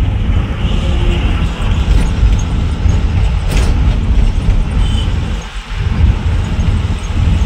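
Goods truck driving on a highway, heard from inside the cab: a loud, steady low rumble of engine and road noise, dipping briefly about five and a half seconds in.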